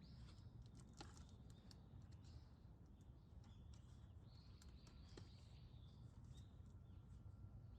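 Faint birds calling at dawn, short high chirps and clicks scattered through, over a low steady rumble of ambient noise.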